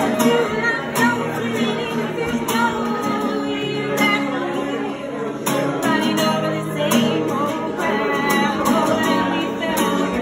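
A woman singing while strumming chords on an acoustic guitar, a live solo song.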